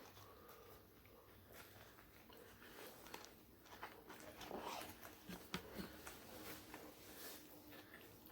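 Faint chewing with small scattered mouth clicks of someone eating, quiet between bites.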